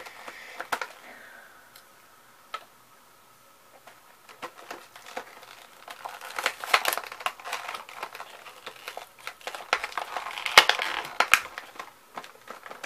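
Plastic toy blister packaging being worked open, crinkling and crackling in a quick run of sharp clicks that starts a few seconds in and grows busier towards the end.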